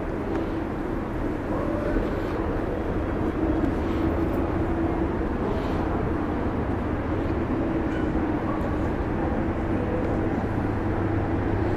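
Steady machinery hum with a constant mid-pitched drone over a low rumble, growing a little louder toward the end.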